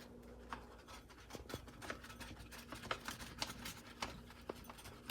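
Faint, irregular small clicks and scratches from objects being handled, over a low steady room hum.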